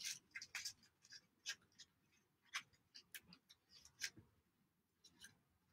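Faint, irregular clicks and scratchy rustles of a pipe cleaner being wrapped around and twisted tight by hand.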